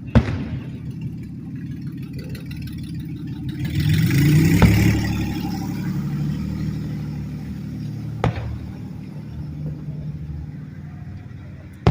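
Fireworks going off: sharp bangs about every four seconds over a steady low rumble, which swells louder for a couple of seconds in the middle.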